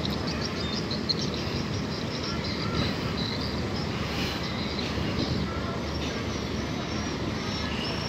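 Many small birds chirping in short, high calls over a steady low rumble of outdoor noise.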